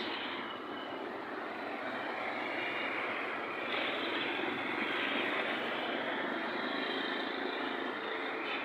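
Steady rushing noise of a moving vehicle, swelling a little partway through.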